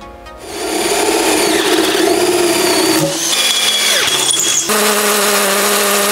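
Cordless drill running under load, boring into steel and then into a wall, in quick cuts about three seconds in and again a second and a half later; the motor's pitch rises near the end.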